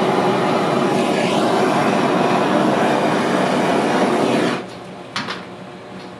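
Handheld butane kitchen torch burning with a steady rushing hiss as it toasts whipped cream; it cuts off suddenly about four and a half seconds in.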